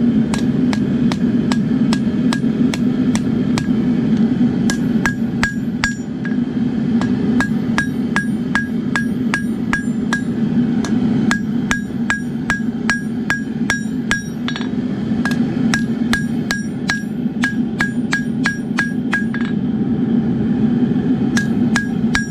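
Three-pound dog's head hammer striking hot wootz steel on the anvil in steady runs of about three blows a second, forging the blade's tip into a spear point, with brief pauses between runs. Each blow leaves a short bright ring, over the steady rushing of the forge.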